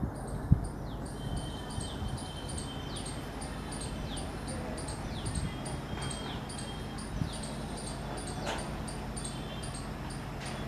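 EMD diesel locomotive approaching, its engine a steady low rumble, with a high chirp repeating about twice a second over it.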